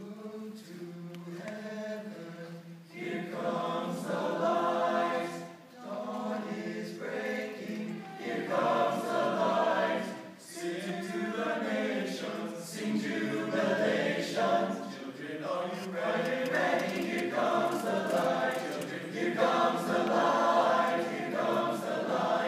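Male choir singing in parts, coming in right at the start and moving in phrases with short breaks between them.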